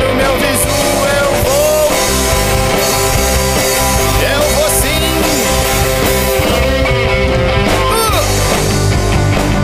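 Recorded punk/alternative rock music: a band of electric guitar, bass guitar and drums playing steadily. A held guitar note runs under curving, bending lead lines.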